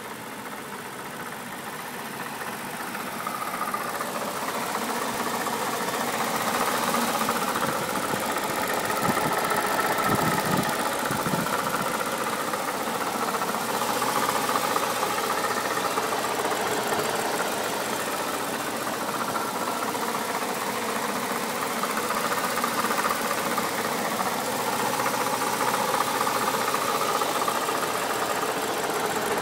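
BMW N62B48 4.8-litre V8 engine running at idle with a clicking noise coming from its failed water pump. The sound grows louder over the first several seconds and then holds steady.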